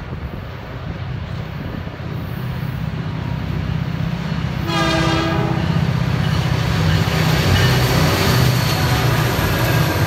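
Diesel locomotives of a CN freight train approaching, their engines rumbling louder as they near. About halfway through, the lead locomotive's horn sounds one short blast of about a second.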